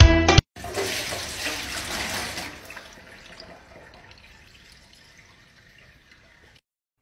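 Liquid poured from a cup splashing into a stainless steel sink: a hissing splash that fades away over several seconds and stops abruptly near the end. Background music cuts off about half a second in, just before it.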